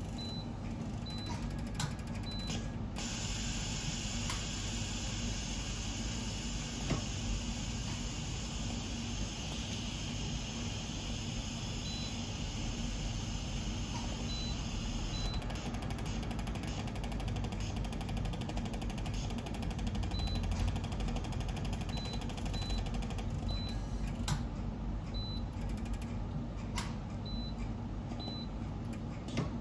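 Touchscreen control panel giving short high beeps as its keys are pressed, in small clusters of quick presses, over a steady machine hum with a few light clicks.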